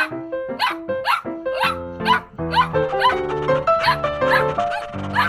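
Small dog yipping over and over, about two or three short yaps a second, a puppy sound effect over cheerful background music.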